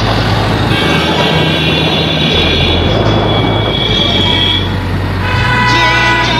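Loud DJ-remix music with a deep bass line that steps to a new note every second or two under long held high notes.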